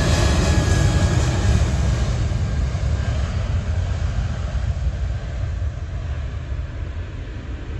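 Twin turbofan engines of an ANA Boeing 777-200 at full takeoff thrust during its takeoff roll: a loud, deep roar with a faint high whine that fades steadily as the jet moves away down the runway.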